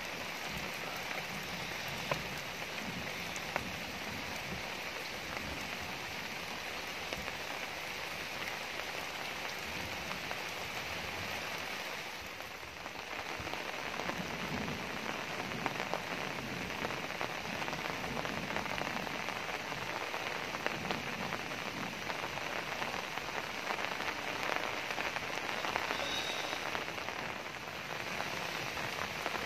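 Heavy rain falling steadily, an even hiss with scattered drop ticks; it eases briefly about halfway through.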